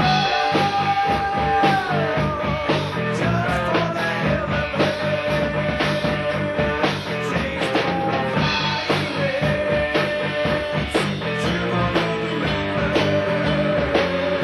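Rock music with a steady drum beat and bass, and a held lead melody line that slides down in pitch about two seconds in.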